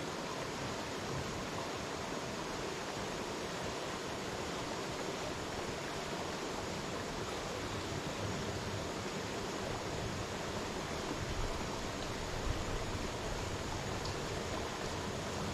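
Creek water flowing: a steady, even rush with no break.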